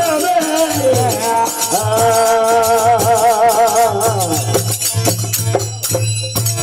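Rajasthani desi bhajan: a man sings long held notes with a wavering vibrato into a microphone, accompanied by harmonium and brass manjira hand cymbals clashing in rhythm. The voice stops about four seconds in, leaving the harmonium and cymbals.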